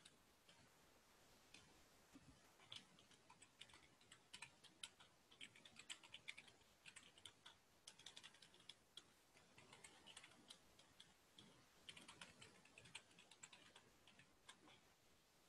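Computer keyboard typing, faint, in short runs of quick keystrokes separated by brief pauses.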